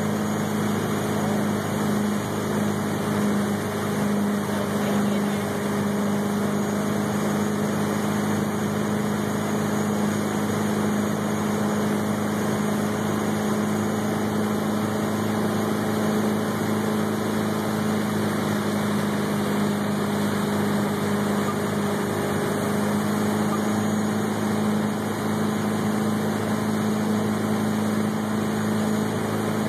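A ski tow boat's engine running steadily at towing speed, a constant low drone, over the steady rush of water and spray.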